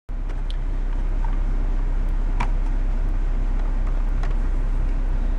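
Steady low rumble of a car's engine idling, heard inside the cabin, with a few faint clicks as a phone and its charging cable are handled at the console.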